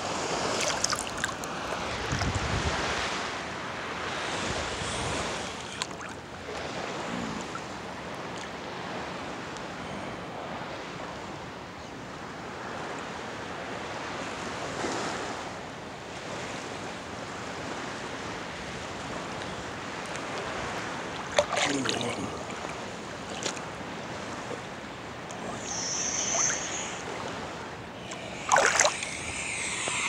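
Atlantic Ocean water lapping and sloshing close to a phone held at the surface by a swimmer, with some wind noise. A few brief sharp sounds stand out in the second half.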